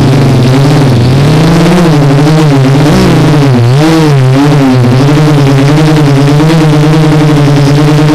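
Quadcopter's electric motors and propellers buzzing right at the onboard camera, one droning pitch that swings up and down for the first few seconds as the motor speed changes, then holds steadier.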